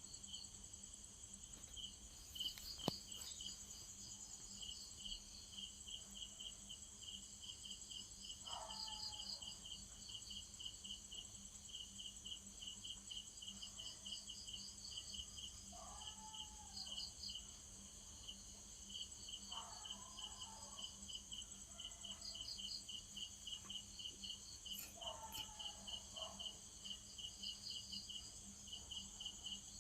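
Crickets chirping: a steady high trill with rapid, evenly repeated chirps, a few faint lower calls now and then, and one sharp click about three seconds in.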